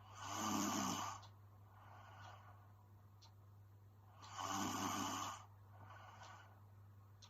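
A sleeping woman snoring: two loud snores about four seconds apart, each lasting about a second, with softer breaths between them.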